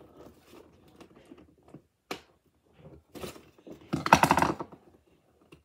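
Hands handling a boxed toy figure's cardboard-and-plastic packaging: a scatter of small clicks and taps, with a louder burst of rapid rasping ticks about four seconds in as the box is worked at.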